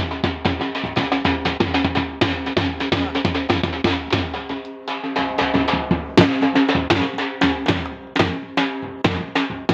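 Punjabi dhol beaten with two sticks in a fast, driving rhythm: deep thumps from the bass head and sharp cracks from the treble head, about five or six strokes a second, with a brief lull about five seconds in.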